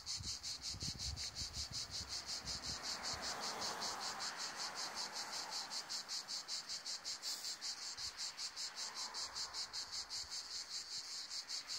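Loud, high-pitched insect chirping from a tree, an even pulsing call repeating about four to five times a second without a break. The recorder takes the callers for moths.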